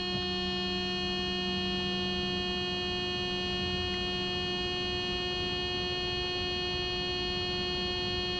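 Steady, unchanging buzzer tone from the 1987 Mercedes 300SDL's in-car warning buzzer, sounding with the ignition on while the diesel's glow plugs preheat before a cold start.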